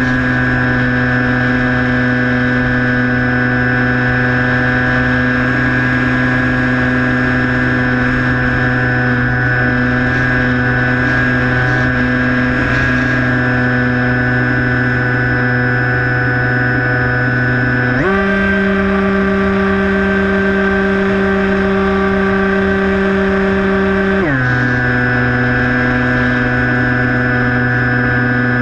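Brushless electric motor and propeller of a Skywalker 1680 RC plane in flight, a steady whine. About two-thirds of the way through, the pitch steps up sharply as the throttle is raised, holds for about six seconds, then drops back down.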